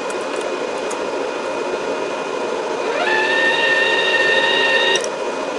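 The cooling fan of a Sefaspe 135E inverter MIG welder runs steadily throughout. About three seconds in, the welder's wire-feed motor spins up with a rising whine and holds a steady whine for about two seconds, advancing the welding wire toward the torch tip, then cuts off suddenly.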